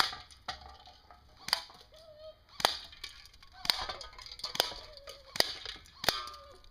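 Battery-powered electric airsoft G36C with a metal gearbox firing single shots at pop cans: about eight sharp cracks, spaced irregularly half a second to a second apart.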